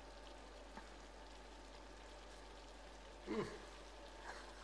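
Shakshuka sauce simmering quietly in the pan, a faint steady sizzle. About three seconds in, a man makes a short voiced sound that falls in pitch, and a softer one follows near the end.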